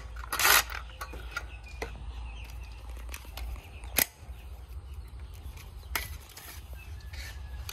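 A DeWalt cordless impact driver rattles briefly, about half a second in, undoing the arbor bolt of a circular saw. A few sharp metal clicks follow, about 4 and 6 seconds in, as the washer and blade are lifted off.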